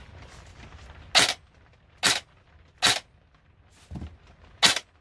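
Nuprol M4 airsoft electric gun with a freshly serviced version 2 gearbox dry-firing on test without a barrel: five single shots, short and sharp, roughly one a second, the fourth weaker. The gearbox cycles cleanly with good pressure.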